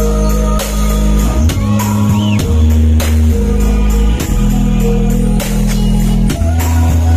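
A large outdoor sound-horeg rig with stacked subwoofers, from AR Audio Jember, playing loud music at a sound check: heavy bass notes held about a second each and changing pitch, with a steady drum beat over them.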